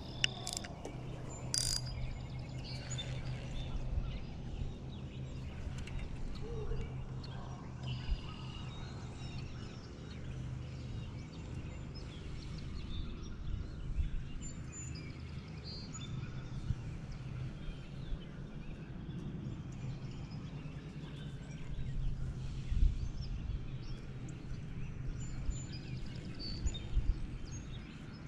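Small birds chirping and singing, scattered short high calls over a steady low hum, with a few brief low knocks close by.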